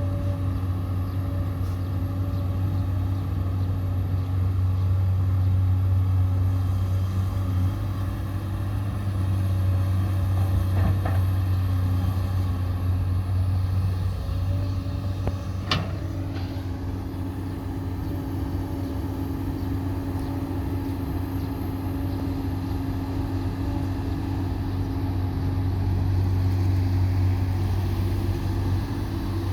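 Steady low engine drone at an unchanging pitch, with one sharp click about sixteen seconds in.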